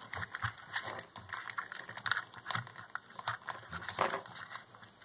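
Hands handling the plastic parts of a small RC car, a micro servo and its chassis, giving irregular light clicks, taps and rustling.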